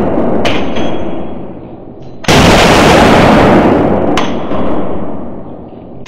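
CZ Scorpion EVO 3 S1 carbine firing 9x19 mm rounds in slow, deliberate single shots: one a little over two seconds in and the next right at the end. Each shot is very loud, with a long echoing tail in the indoor range.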